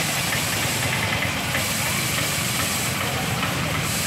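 Small engines of an auto rickshaw and motorcycles running at low speed through flooded potholes, with a steady high hiss over them.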